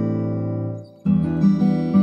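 Acoustic guitar music: a strummed chord rings and fades out about a second in, then a new strum starts.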